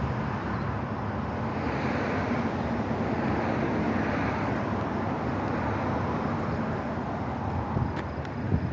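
Steady road traffic noise, with vehicles swelling past. A few light clicks near the end.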